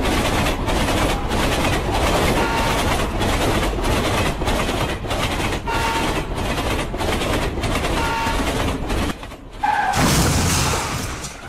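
Train sound effects: a train rolling with a steady, regular clickety-clack and short horn toots every two to three seconds. About ten seconds in a brief horn note is followed by a loud crash that fades away.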